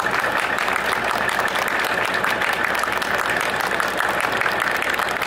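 Applause: a group of people clapping steadily.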